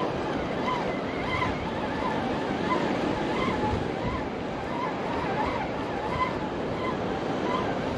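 Steady wash of ocean surf breaking on a beach, with faint wavering chirp-like tones over it.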